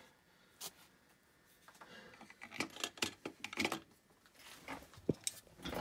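Irregular clicks and scrapes of a Metcal soldering iron handpiece being handled at its bench stand: the tip worked against the cleaning sponge and the handpiece set into its holder.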